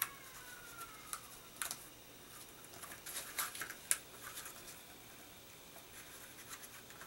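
Paper card stock being handled and pressed into place: a few light crinkles and taps, busiest around three to four seconds in. A faint falling tone fades out just after the start.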